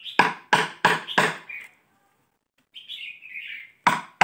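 Hammer striking a steel chisel into the hard-shelled trunk of a móc (fishtail) palm: four quick sharp blows, a pause, then more blows near the end. A bird chirps in the pause.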